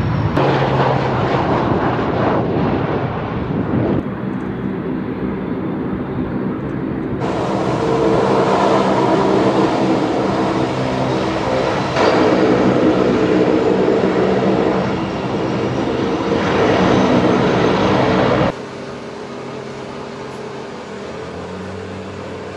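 C-130 Hercules four-engine turboprops running loud, a steady propeller drone with several tones. The sound changes abruptly several times and drops to a quieter engine hum near the end.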